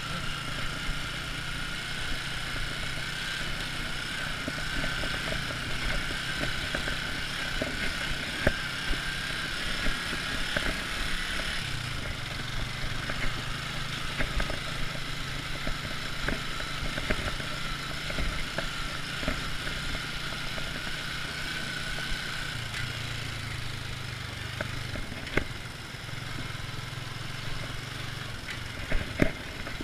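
Motorcycle engine idling steadily, with a steady high-pitched tone over it for most of the time that fades out about three-quarters of the way through, and a few faint clicks.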